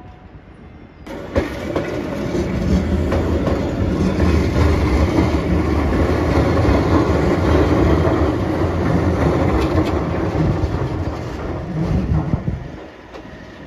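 Keihan 600-series two-car train passing close by on street-running track, its wheels rumbling and clattering on the rails. It starts suddenly about a second in, holds steady, and fades about a second before the end.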